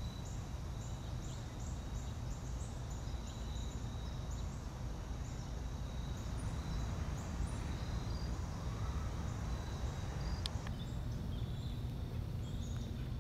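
Forest ambience: a thin steady insect trill with short high chirps repeating over it, on top of a low steady rumble, with one sharp click about ten seconds in.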